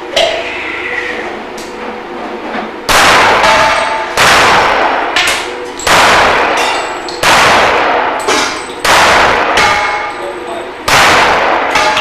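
Six pistol shots about one to two seconds apart, each followed by a ringing clang as steel targets are hit.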